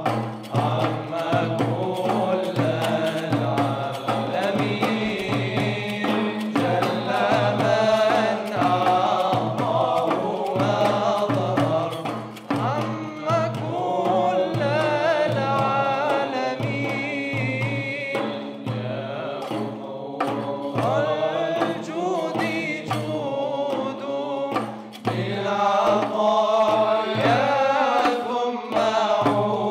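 Male vocal ensemble singing an Islamic devotional song (nasheed): one voice carries a winding, ornamented melody over a steady low held drone. Frame drums beat a regular rhythm underneath.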